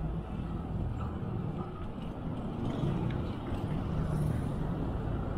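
Wind rushing over the handlebar camera's microphone and tyre noise from a bicycle riding along a paved road, a steady low rumble. A faint motor-vehicle engine hum rises and fades about three to four seconds in.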